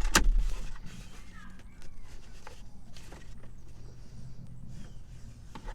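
Handling noise of a seatbelt retractor being worked by hand: a heavy rumble at first, then scattered light clicks and knocks, with a sharper click near the end. Faint insect or bird chirps sit in the background.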